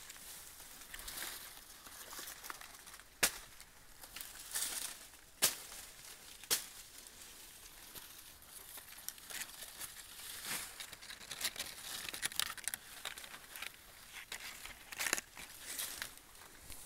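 Dry corn leaves and stalks rustling and crackling as they are brushed and pushed aside, with a few sharp snaps.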